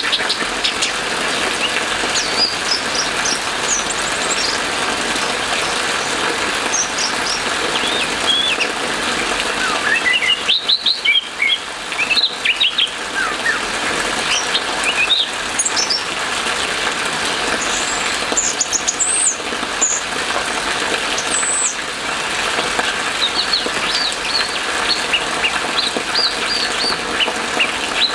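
Orange-headed thrush singing in full song: a long, varied run of short whistled notes, busiest and loudest about ten to thirteen seconds in, over a steady hiss of rain.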